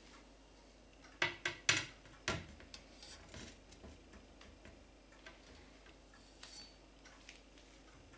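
Metal hardware of an optics mount being handled: an angle bracket and screen holder on an upright metal pole. Four sharp metallic clicks and knocks come in quick succession about a second in, followed by a few fainter ticks.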